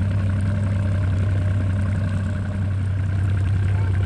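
Boat motor running steadily at low speed: an even, low hum.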